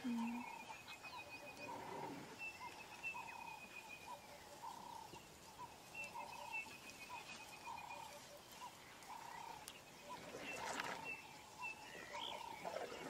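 Natural outdoor ambience: an animal call repeated steadily about twice a second, with high bird trills coming and going over it. A short rushing noise comes about ten seconds in, and short rising whistles near the end.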